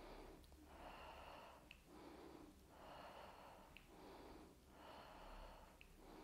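A woman breathing in and out steadily and faintly while exercising, each breath about a second long, in an even rhythm.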